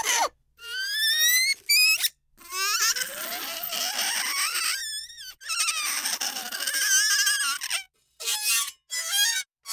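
Metal pressed against a block of dry ice, squealing as the cold metal vibrates on the ice. It makes a string of high, singing squeals that rise and warble in pitch, the longest lasting several seconds, with sudden breaks between them.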